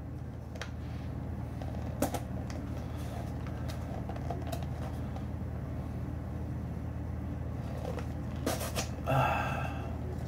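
Folding knife scraping and slitting the tape on a small cardboard box, with a light click and faint rustles, over a steady low hum. Near the end comes a louder rustle as the cardboard flaps are pulled open.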